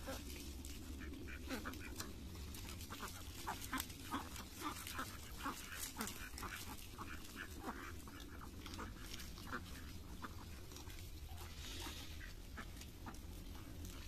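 A flock of domestic ducks quacking, with many short calls overlapping. The calls come thickest in the first half and thin out toward the end.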